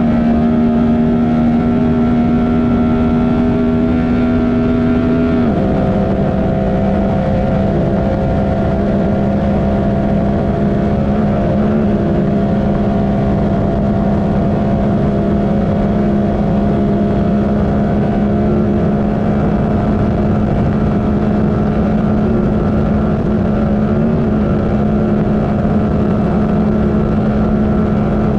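Honda Talon race UTV's twin-cylinder engine running steadily at speed over rough terrain, with a constant rush of wheel and wind noise. The engine pitch drops a little about five seconds in, then holds steady.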